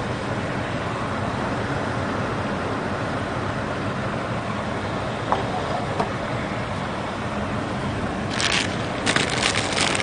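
Steady rush of wind and surf, with a couple of light clicks around the middle. A plastic instant-ramen packet crinkles near the end as it is handled.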